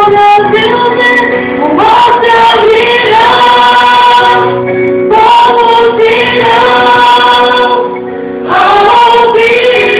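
Christian worship song with a choir singing long held notes in phrases several seconds long, over instrumental backing.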